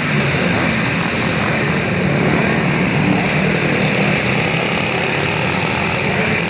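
Briggs & Stratton Animal kart engines running steadily at racing speed, a continuous engine drone.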